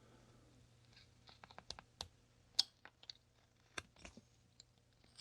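Carving knife cutting into a basswood block: a string of small, irregular clicks and crisp snaps as the blade slices away chips, starting about a second in.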